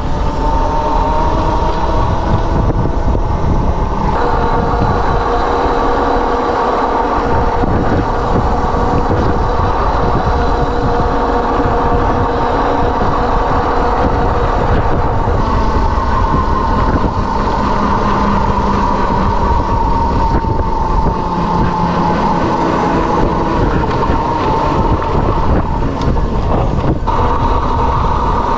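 Electric motorbike on the move: the electric motor and chain drive give a steady whine at a few pitches that shift slowly with speed, over loud continuous wind and road noise.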